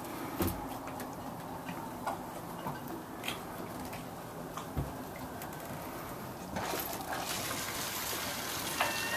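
Water lapping and sloshing against a docked boat's hull, with a few light knocks.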